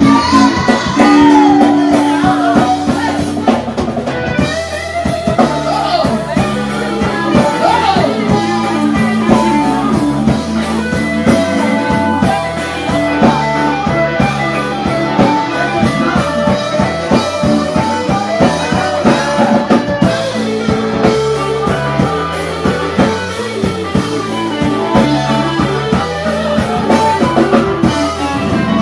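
Live blues band playing loudly, with guitar, drum kit and a bass line under a singer's voice.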